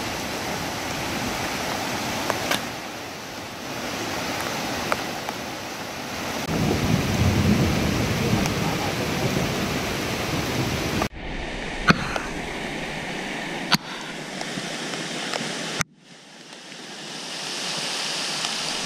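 Rain-swollen, muddy jungle stream rushing over rocks: a steady rush of water that cuts off sharply twice, about eleven and about sixteen seconds in.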